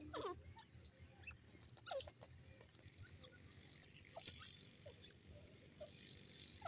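Grey francolin giving several faint, short squeaky notes, each dropping in pitch, with scattered small clicks.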